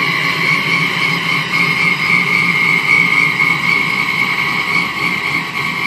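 Supercharged LS1 V8 in a 2002 Pontiac Trans Am WS6 idling steadily, with a constant high-pitched whine over the engine rumble.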